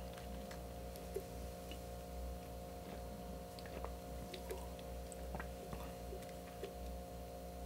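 Faint sipping and swallowing from a plastic shaker cup, with scattered small clicks and taps as the cup is handled, over a steady low hum.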